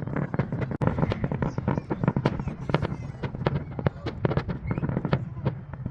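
Fireworks going off: a dense, irregular run of bangs and crackles, several a second, over a low rumble.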